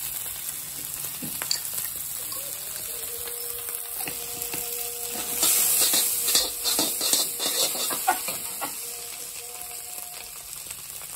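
Egg, capsicum and cabbage sizzling in an iron kadai, with a steel ladle scraping and tossing them. The stirring gets louder for a few seconds about halfway through, then settles back to a steady sizzle.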